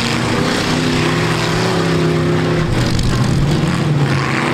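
Several full-size V8 demolition derby cars running and revving together, their engine pitch rising and falling.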